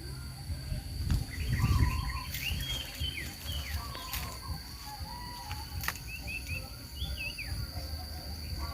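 Small birds chirping in short phrases of quick rising and falling notes, over a steady high-pitched insect drone. A low rumble rises and falls about a second in, and there are two sharp clicks midway.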